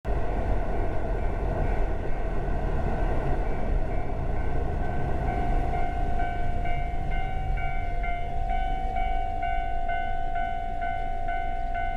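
Japanese level-crossing warning bell ringing, a repeating two-tone electronic clang about twice a second, that becomes loud about five seconds in, over a steady low rumble.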